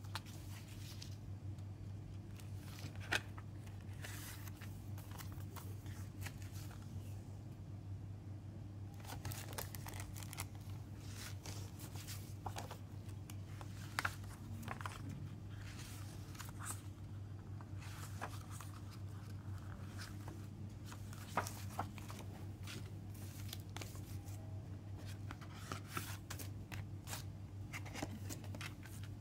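Paper and thin cardboard handled by hand: booklet pages turned and a cardboard CD sleeve shuffled, in short scattered rustles and clicks over a steady low hum.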